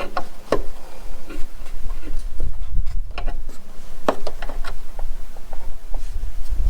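Scattered clicks and light knocks over a steady low rumble.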